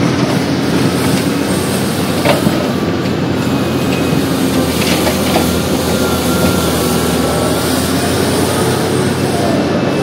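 Liebherr R 984C hydraulic excavator's diesel engine and hydraulics running steadily under load, heard from the operator's cab, with a few knocks as rocks and soil drop from the bucket into a dump truck's bed, about two seconds in and again around five seconds in.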